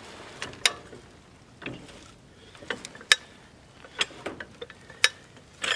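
Railroad track jack being worked by its long steel handle, its pawl and rack giving sharp metallic clicks at irregular intervals, about eight in all, as the shipping container is lowered onto its pads.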